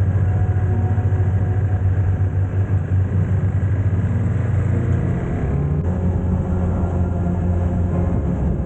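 Motorcycle engine running steadily while riding, a low rumble whose pitch shifts about five and a half seconds in.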